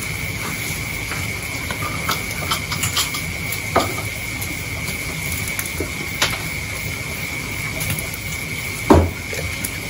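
Hands sorting through a pile of wet mangrove leaves and live catch on a concrete floor: soft rustling with scattered small clicks and taps, and a couple of louder knocks, one about four seconds in and one near the end. A steady high-pitched whine runs underneath.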